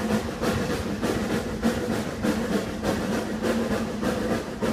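Snowdon Mountain Railway steam rack locomotive Padarn climbing, its exhaust beating steadily at about three beats a second.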